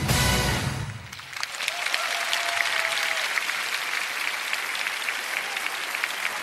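The last notes of a pop song with a heavy bass end about a second in, and a large audience breaks into steady applause, dense clapping that carries on to the end.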